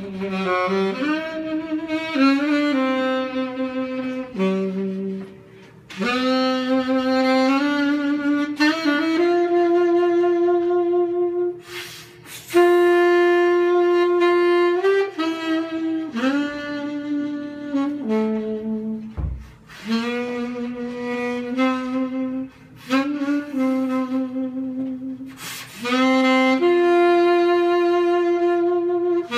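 Saxophone playing a slow song melody solo, unaccompanied, with held notes in phrases broken by short pauses.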